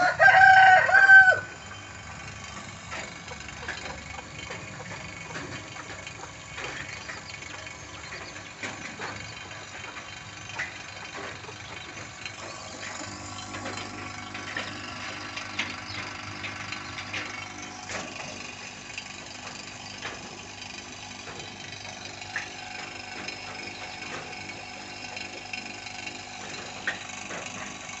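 Refrigeration vacuum pump running steadily while evacuating a chest freezer's refrigerant system, before the freon charge. A loud, brief pitched call cuts across it in the first second or so.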